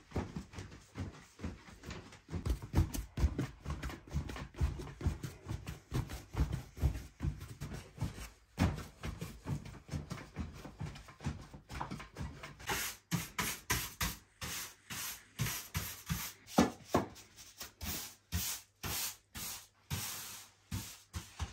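A very large mass of bread dough kneaded by hand on a wooden table: a steady run of dull thuds and slaps, two or three a second, as fists press and fold the dough. About halfway through the strokes turn brighter and sharper.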